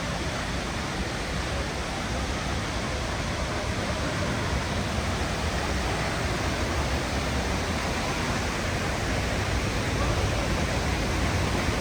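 Waterfall at close range: a steady, even rush of falling water that grows slightly louder toward the end.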